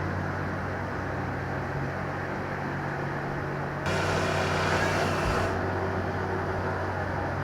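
Heavy machinery's engine running steadily with a low hum. About four seconds in, a burst of hiss starts and stops abruptly and lasts about a second and a half.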